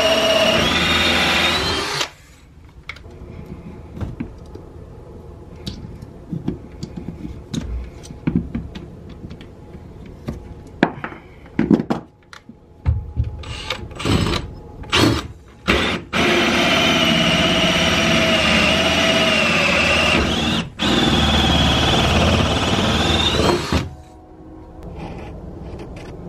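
Makita cordless drill turning a hole saw through a wooden shed floor. The motor whines under load, its pitch sagging and recovering, and stops after about two seconds. A quieter stretch of knocks and a few short bursts of the drill follows, then a steady run of about eight seconds that dips once briefly before the drill stops.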